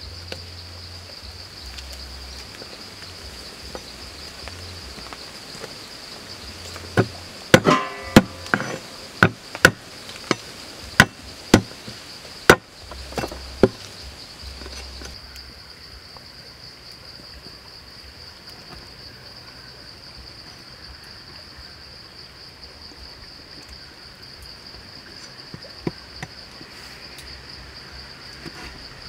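Steel cleaver striking a wooden chopping board about a dozen times in quick succession, chopping and crushing garlic cloves, over a steady high drone of insects. Near the end come a couple of faint knocks as the cleaver cuts small limes.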